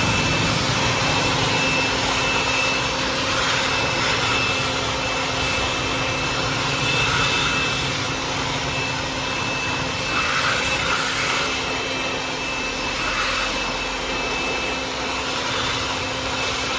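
FEG EG103 600 W handheld electric dust blower running steadily, a high motor whine over the rush of air, as it blows dust out of an evaporative air cooler's grille.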